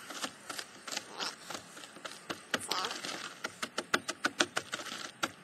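Charcoal being crushed and pounded into powder with repeated sharp, crunchy strikes. The strikes are irregular at first, then settle into a quick even rhythm of about five a second.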